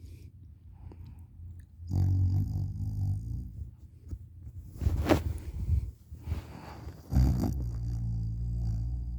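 A person snoring through an open mouth: two low, droning snores, about two seconds in and again about seven seconds in, each lasting a second and a half or more, with a short noisy breath between them.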